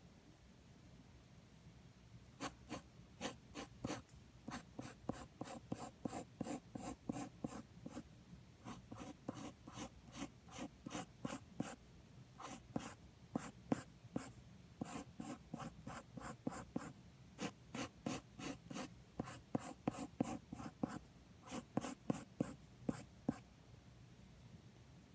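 Wooden graphite pencil sketching on paper, going over the outline of a circle: quick scratching strokes, about two or three a second, in runs broken by short pauses.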